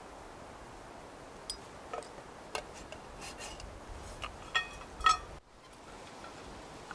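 A scattered run of light clinks and knocks from cookware or utensils being handled. A few of them ring briefly, and the loudest falls about five seconds in, over a steady low hiss.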